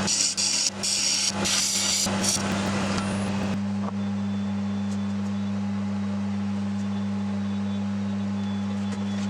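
Turning tool cutting a spinning wood blank on a lathe, a hissing scrape with brief breaks, over the steady hum of a machine motor. About three and a half seconds in the cutting stops and only the steady hum goes on.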